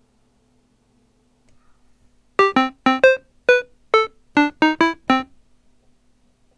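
A short electronic-keyboard jingle of about eleven quick, sharply struck notes, starting a couple of seconds in and stopping about five seconds in: a closing sting over the end card.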